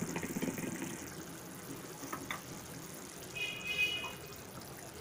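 Thick chilli paste simmering in a frying pan, bubbling and popping, busiest in the first second and then quieter. A short high-pitched tone sounds about three and a half seconds in.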